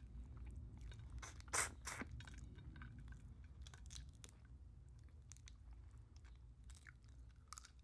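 Boiled lobster shell crackling and crunching as it is picked apart by hand, with close-up chewing. A sharp crack about one and a half seconds in is the loudest sound, followed by scattered small clicks.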